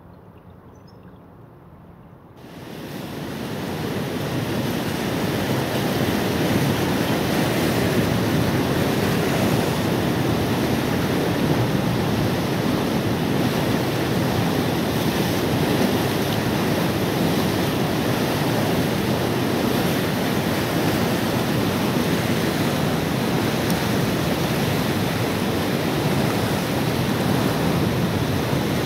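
Swollen, fast-flowing floodwater rushing and churning below a river sluice: a steady, dense rush of water that comes in suddenly about two seconds in and stays at a constant loud level.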